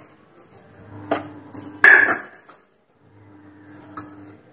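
Stainless steel plate and utensils knocking and clinking on the kitchen counter as the plate of vegetables is picked up and handled, with one loud ringing clink about two seconds in and softer knocks before and after.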